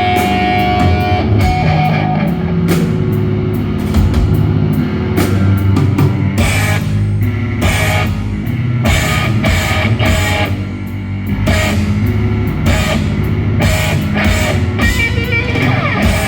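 Loud live post-hardcore rock band playing: distorted electric guitar and bass over a drum kit with frequent hits and cymbal crashes.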